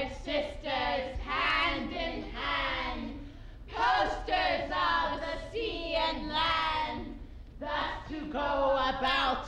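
Three women's voices chanting a rhyme together in a sing-song unison, in phrases of about three seconds with short breaks between them.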